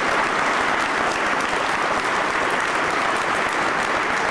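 A packed room of people applauding steadily after a speaker finishes.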